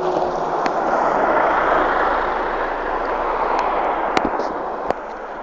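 Volánbusz coach driving close past, the noise of its engine and tyres swelling and then fading as it goes by. A few sharp clicks come near the end.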